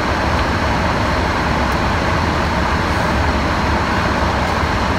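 Steady rush of a car's air conditioning blowing inside the cabin, with a low hum underneath.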